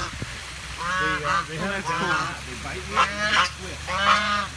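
Geese honking, four short harsh calls in a row, over a low steady hum.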